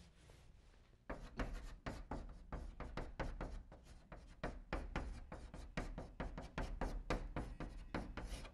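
Chalk writing on a blackboard: a quick run of short taps and scratches as each stroke is drawn, starting about a second in.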